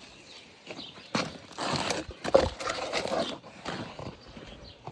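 Plastic parts and packaging of a new pressure washer being handled and dropped into a cardboard box: irregular knocks and rustles, a few at a time.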